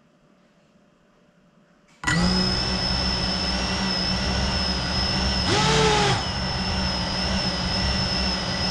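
Near silence, then about two seconds in the motors of a GEPRC Cinelog 35 cinewhoop drone start up all at once and spin at idle with a steady high whine and low hum. A brief throttle blip a little past the middle raises their pitch and lets it fall back.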